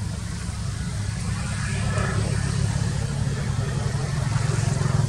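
A low, steady motor-vehicle engine hum that grows gradually louder toward the end.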